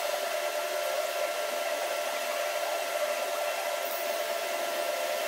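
TIG welding arc burning steadily while filler rod is fed in to fill a blown-through hole in a pipe: an even hiss with a faint high hum underneath.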